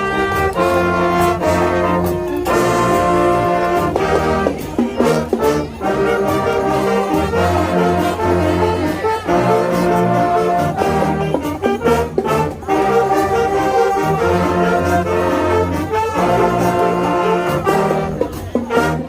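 High school marching band playing loud held brass chords over heavy low brass, with sharp drum strikes and a few brief breaks between phrases.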